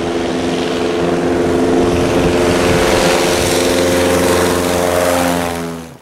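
Small single-engine propeller bush plane at full throttle on its takeoff run, the engine and propeller note steady and growing louder as it comes toward and lifts off, then dropping away just before the end.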